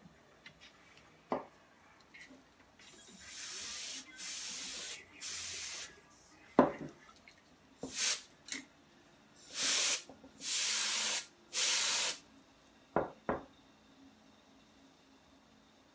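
Can of compressed air blown through its straw nozzle in about seven short bursts of hiss, each up to a second long, to push wet alcohol ink across the canvas. A few sharp knocks fall between the bursts.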